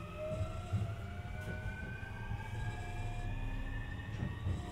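Sotetsu 20000 series train's Hitachi SiC-VVVF inverter and traction motors whining as the train accelerates, several tones rising slowly and steadily in pitch over a low running rumble.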